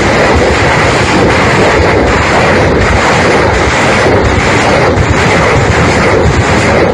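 Loud, steady roar from a large blast of fire and billowing smoke beside a military truck, with no separate bangs standing out. The noise is heavy enough to swamp the phone's microphone, like strong wind buffeting it.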